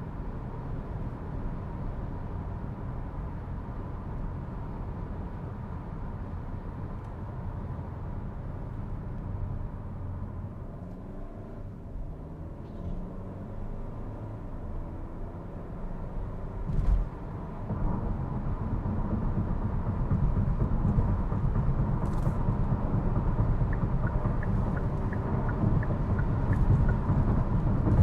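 Cabin noise in a 2023 Hyundai Kona on the move: tyre and road rumble with the engine note rising in steps as the seven-speed dual-clutch transmission shifts through the gears. A single thump comes about 17 seconds in, after which the low road rumble is louder and rougher.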